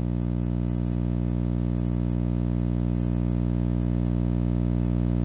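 Steady electrical hum with many evenly spaced overtones, holding one pitch without change throughout.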